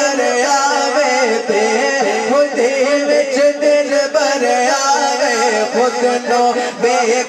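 Punjabi devotional kalam music: a male singer's melodic line carried over continuous musical accompaniment, with no clear words.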